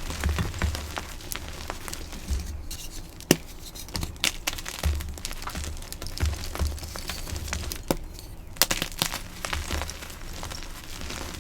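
Dyed gym chalk blocks being crushed, crunching and crackling in a dense run of small cracks, with one sharper crack a few seconds in and soft thumps of pressing beneath.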